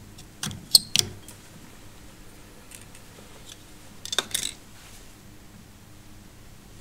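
Small fly-tying scissors snipping: a few sharp clicks within the first second. A brief rustle of handling follows about four seconds in.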